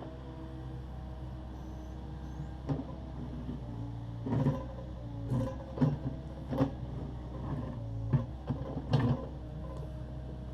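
Takeuchi TB260 excavator's diesel engine running steadily under a run of about seven or eight sharp clunks and knocks spread over six seconds, the sound of the digger's bucket and arm working broken concrete.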